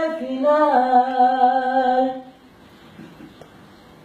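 A man singing unaccompanied, holding the last long, sliding notes of a ballad; the voice stops about two seconds in, leaving quiet room tone.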